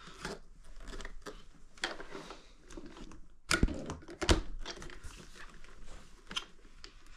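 Plastic vacuum cleaner parts being handled: scattered light clicks and taps, with two louder knocks about three and a half and four seconds in.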